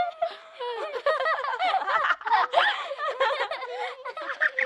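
A group of children laughing and giggling, several high voices overlapping.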